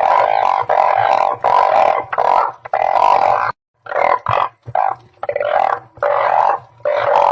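Chorus of blunt-headed burrowing frogs (Glyphoglossus molossus) calling: short calls follow one another about once a second, with a brief gap about three and a half seconds in.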